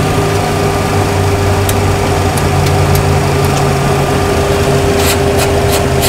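Steady cockpit hum and whine of a parked Boeing 737 Classic as the shutdown procedure begins. Over it, overhead-panel switches are flipped with sharp clicks: a few scattered ones, then a quicker run of clicks about five seconds in.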